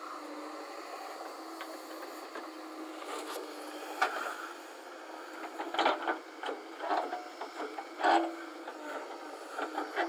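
JCB 3DX backhoe loader's diesel engine running steadily while its front loader bucket digs into soil and stones. From about four seconds in there is a string of scraping knocks and clatters, loudest twice near the end.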